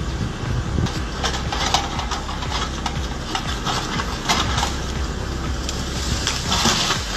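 An engine running steadily under irregular knocks and clattering.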